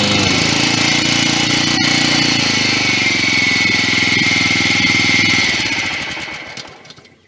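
Honda HRX 476 lawnmower engine running steadily, then shut off about five and a half seconds in and running down to a stop.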